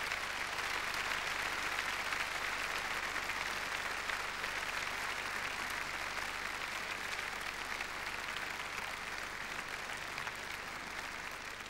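Large audience applauding steadily, a dense patter of many hands clapping, slowly dying down over the last few seconds.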